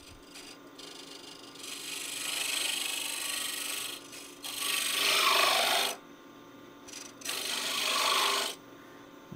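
Scraper cutting spinning wood on a lathe, taking the box part down to fit: three passes of rasping hiss, the second the loudest, over the lathe's steady hum.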